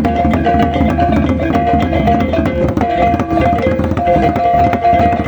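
Balinese gamelan music: fast, dense percussion strokes under a repeating melody played on pitched metal mallet instruments.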